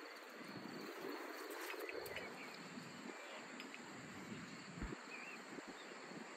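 Quiet rural meadow ambience: a faint steady insect trill under a soft hiss of air, with a few short bird chirps between about one and a half and three seconds in. A soft low bump comes about five seconds in.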